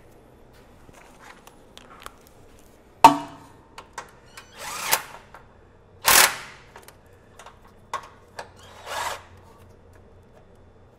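A sharp metallic clank about three seconds in, then three short bursts of a small impact wrench, the middle one loudest, as it fastens new, longer rear bump stops in place.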